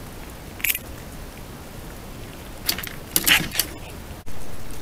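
Pine marten moving and feeding on a wooden feeder table: a couple of small clicks, then a short burst of clattering and scrabbling about three seconds in. A brief dropout near the end gives way to a louder steady hiss.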